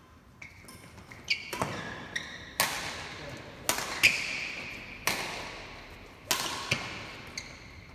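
Badminton rally: rackets hitting the shuttlecock in sharp cracks about a second apart, six or seven hits, echoing in a large hall. Short squeaks of court shoes come in between the hits.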